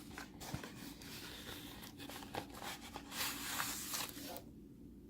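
Paper packaging rustling as the contents of a mail package are handled and pulled out, loudest about three to four seconds in, then quieter.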